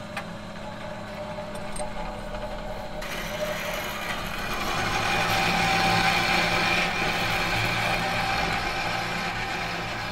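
A machine running with a steady low hum, and a noisy rush over it that builds from about three seconds in, is loudest around the middle and then eases off.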